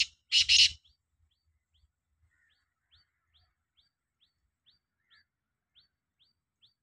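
Black francolin calling: the last loud call notes fall in the first second. After them a faint, short, high chirp repeats about twice a second.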